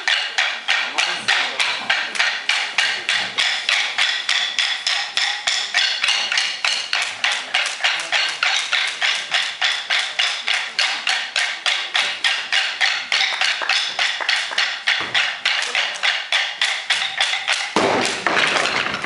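Wooden sticks struck together in a fast, even beat, a long run of sharp clacks. Near the end the beat gives way to a louder rush of noise.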